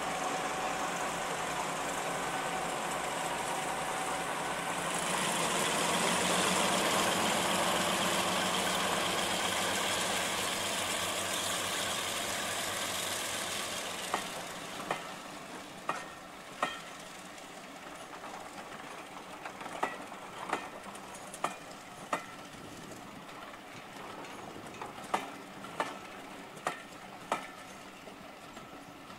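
Class 42 Warship diesel-hydraulic locomotive D821 'Greyhound', with twin Maybach V12 diesel engines, running under power as it passes, getting louder about five seconds in. From about halfway the engine sound fades and the coaches' wheels click over the rail joints as the train rolls by.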